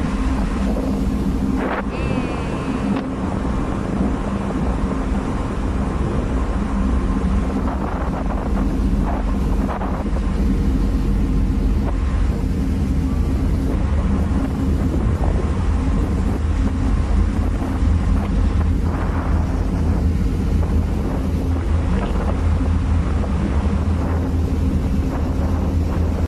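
Wind buffeting the microphone over a steady low hum and rumble from a cruise ship under way.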